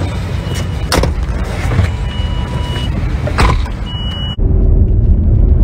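Knocks and handling noise as people climb into a Ford SUV, with a thin high tone sounding on and off. About four seconds in the sound cuts suddenly to the low, steady rumble of the vehicle on the move, heard from inside the cabin.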